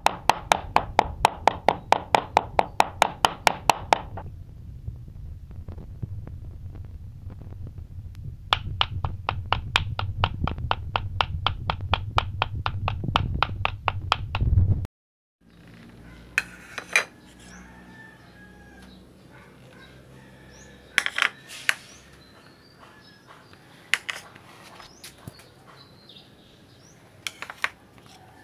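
Cleaver chopping raw beef on a wooden board to mince it: fast, even strokes about five a second, in two long runs with a pause between. After a cut it goes quieter, with only a few scattered sharp knocks.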